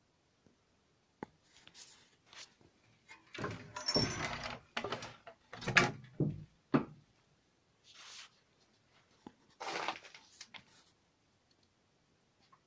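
A run of knocks, thuds and scraping sounds in a small hard-walled room, loudest and most frequent about four to seven seconds in, with two longer hissing scrapes later on.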